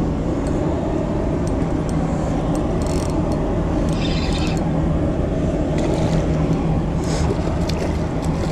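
A spinning reel being wound in short spells, giving brief scratchy clicking bursts, over a steady low rumble with a hum.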